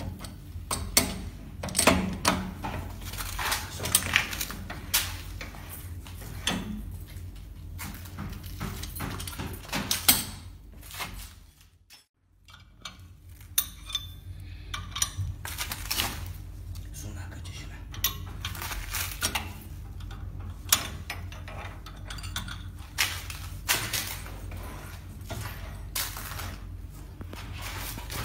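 Spanner clinking and clanking against the steel barrel and die head of a corn puff snack extruder, in irregular metal-on-metal knocks over a steady low hum. The sound cuts out for about a second halfway through.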